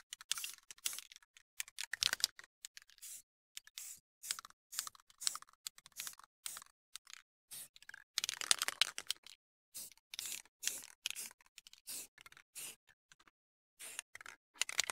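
Rust-Oleum aerosol spray-paint can sprayed in many short hissing bursts, two or three a second, with a longer spell of spraying about eight seconds in, touching up a base coat.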